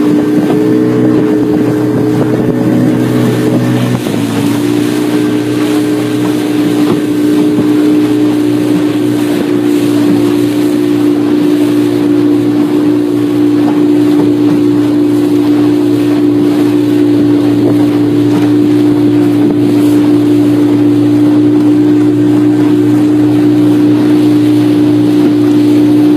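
Motorboat engine running steadily at speed, its note shifting slightly about four seconds in, with wind on the microphone.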